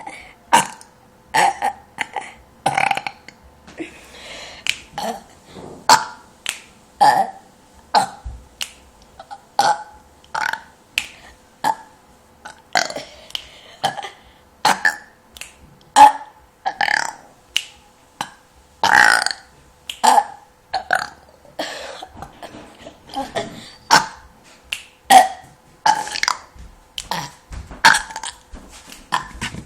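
A person burping over and over in a long run of short, clipped burps, about one a second.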